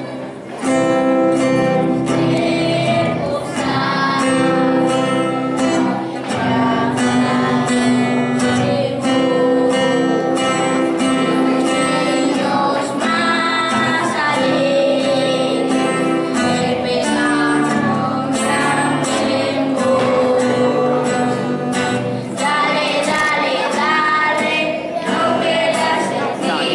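A class of children singing a song together, accompanied by a strummed acoustic guitar.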